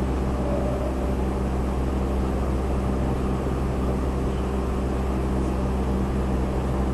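Steady low electrical hum with an even fan-like whir, unchanging throughout.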